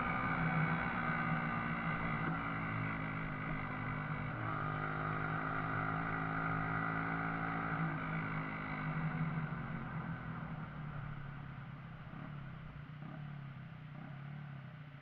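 Shineray Viúva Negra motorcycle engine running at a steady speed, its pitch shifting slightly a couple of times, then fading away over the last few seconds.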